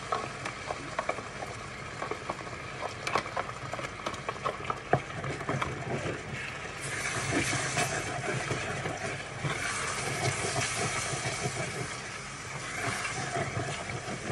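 Wooden spoon stirring spinach sauce in a stainless steel pot, with many light clicks of the spoon against the pot. From about seven seconds in, a steady hiss of the hot sauce sizzling on the heat comes up under the stirring.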